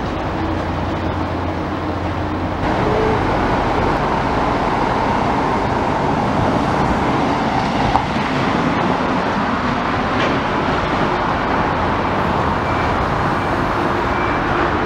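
Steady motor engine noise, a continuous rumble that steps up in level a few seconds in, with a single sharp knock about eight seconds in.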